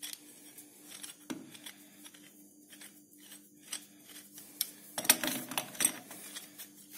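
Light metallic clicks and scrapes of a homemade steel tap wrench being handled, then a short clatter of steel on steel about five seconds in as it is laid down on the lathe carriage. A faint steady hum runs underneath.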